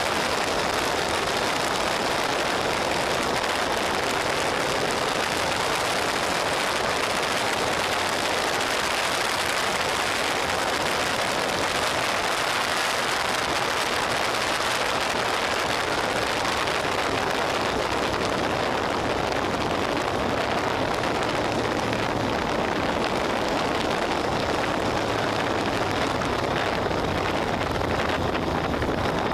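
Steady wind rush over the camera microphone on a motorcycle at road speed. The Suzuki SV650's V-twin engine runs as a faint low note underneath.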